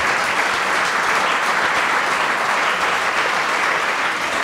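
An audience applauding, a dense, steady clapping.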